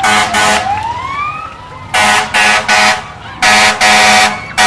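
Fire engine air horn sounding repeated short blasts, in bursts of two and three, about eight in all. A siren's fainter rising wail is heard under the first blasts.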